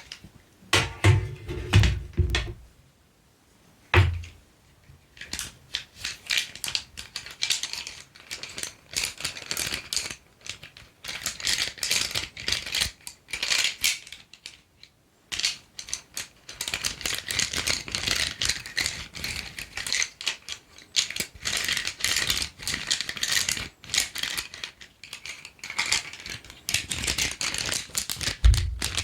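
Colored pencils tapping and clattering against each other, a fast irregular run of light wooden clicks, with a few dull thumps in the first seconds and brief pauses about three and fifteen seconds in.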